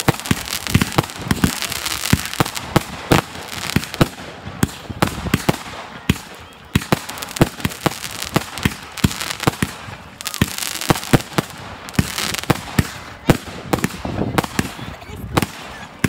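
Fireworks display going off: a dense, irregular run of sharp bangs and pops from bursting aerial shells, several a second.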